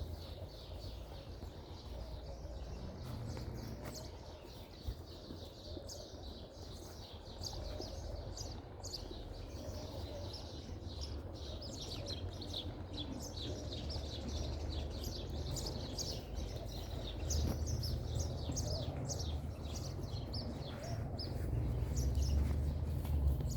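Small birds chirping: many quick, short chirps, busiest in the second half, over a low rumble that swells near the end.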